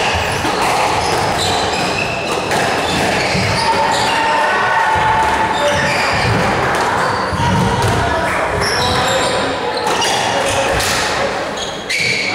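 Squash rally: the ball is struck by racquets and smacks off the court walls again and again, with court shoes squeaking on the wooden floor.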